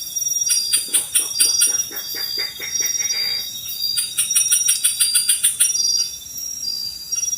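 Forest insects shrilling in steady repeated pulses, with bursts of rapid high chirring. About half a second in, another animal gives a fast run of calls that rises in pitch and stops a little past the middle.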